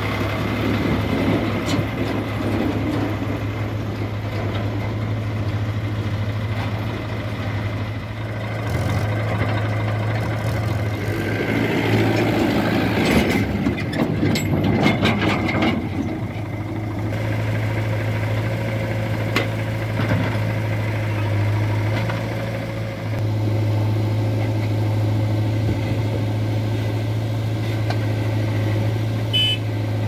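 Diesel engines of a JCB 3DX backhoe loader and nearby Swaraj 735 FE tractors running steadily with a low hum. For a few seconds near the middle it gets louder and rougher as the backhoe works, digging and dumping soil into a tractor trolley.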